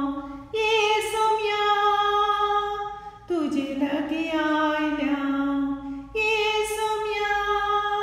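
A woman singing without accompaniment, holding long notes with a slight wavering at the start of each: a higher note, a lower one about three seconds in, then the higher note again about six seconds in.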